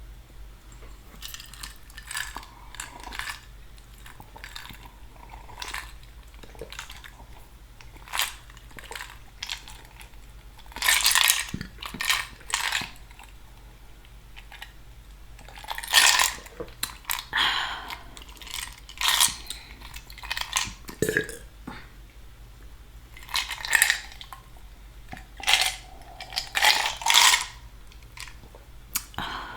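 Close-miked eating sounds: chewing pasta with wet mouth clicks and smacks, and light clinks of a utensil against a dish. The sounds are irregular and come in louder clusters, the biggest about eleven, sixteen and twenty-six seconds in.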